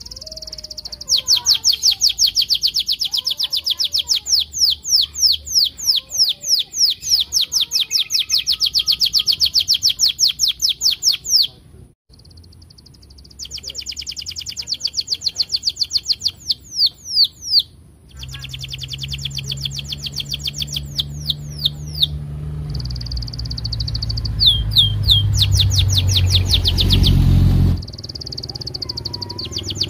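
Domestic canary singing long, fast runs of repeated sweeping chirps, about four a second, with short breaks about twelve and eighteen seconds in. In the second half a low rumble builds underneath the song, then drops away near the end.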